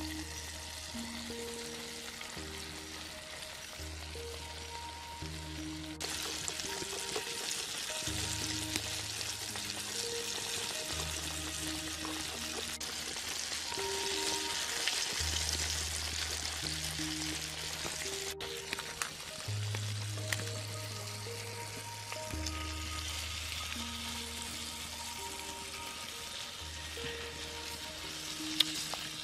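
Flour-coated chicken legs deep-frying in a pot of hot oil: a steady crackling sizzle that grows louder about six seconds in. Soft background music with slow held notes plays underneath.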